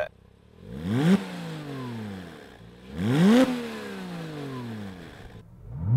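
Porsche Cayman 987.1 S's 3.4-litre flat-six revved twice, each rev rising in pitch and then falling back towards idle, with a third rev starting near the end. The Topgear valved sports exhaust has its valves closed, so it is only a little louder than standard, heard from inside the cabin.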